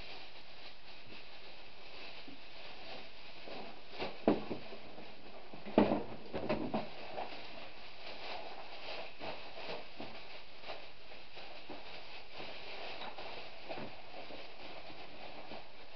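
Black plastic bin bag rustling and crinkling as the full bag is pulled out of a plastic bin and its top gathered to tie it. A sharp knock comes about four seconds in and a cluster of knocks around six seconds in, the loudest sounds.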